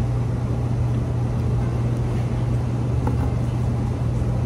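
A steady low machine hum with an even rush of noise over it, unchanging in level.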